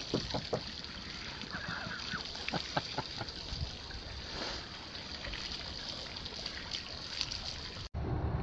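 Water from a garden hose running and splashing onto a concrete pier, with a few short sharp sounds in the first few seconds. Just before the end it cuts to a louder low steady hum.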